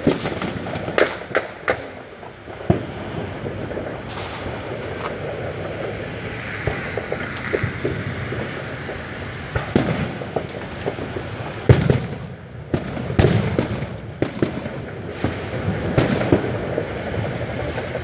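Fireworks and firecrackers going off: many scattered sharp bangs and pops over a continuous crackle, with a run of louder bangs from about twelve seconds in.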